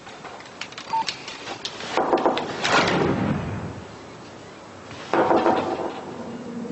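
Scattered clicks and knocks, then a louder rattling clatter about two seconds in and a shorter rattle near the end, as at a front door with a letterbox; a steady low hum begins just before the end.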